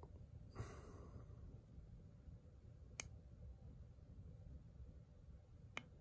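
Near silence with a faint low rumble, a brief soft rustle about half a second in, and two short sharp clicks, one about halfway through and one near the end.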